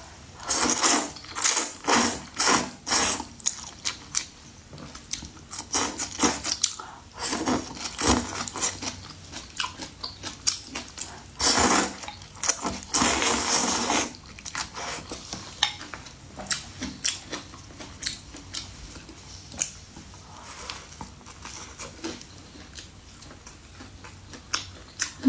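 Close-up eating of luosifen rice noodles: several loud slurps, the longest about half-way through, then quieter chewing with many short clicks.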